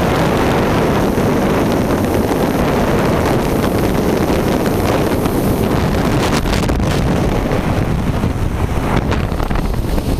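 Freefall wind rushing loudly over a skydiver's wrist-mounted camera microphone. From about six seconds in, a few sharp flaps as the parachute deploys, and near the end the rush eases as the canopy opens.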